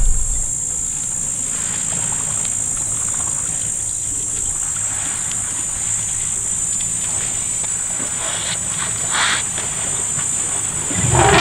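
Steady high-pitched chirring of an insect chorus, with a brief louder noise near the end.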